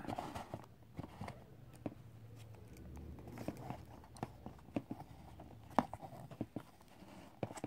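Scattered light clicks, taps and rustling from handling a homemade cardboard capsule vending machine: turning its crank handle, lifting the flap and taking out and opening the plastic capsule.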